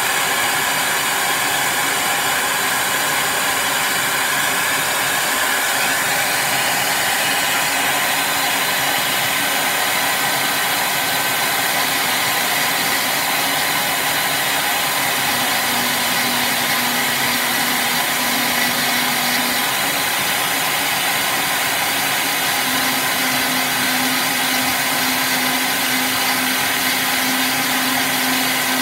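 Dremel rotary tool running steadily, its small bit grinding into the epoxy resin of a Dallas SmartWatch DS1216 module to cut through the battery strap inside. A low steady tone comes and goes in the second half.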